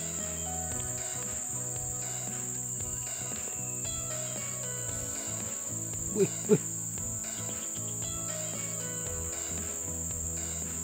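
Steady high-pitched chorus of insects chirring, with two short louder sounds about six seconds in.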